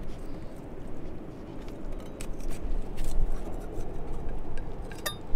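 Serrated knife scraping and clicking against a coconut shell as it is scored around its middle to crack it open, in irregular short strokes, with a sharper ringing click near the end.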